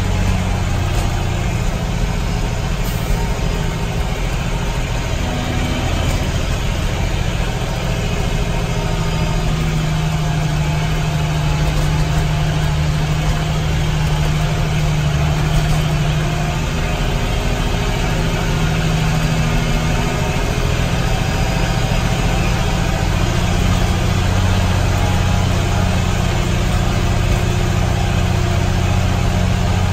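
Kenworth dump truck's diesel engine running steadily, heard from inside the cab as a low, even drone.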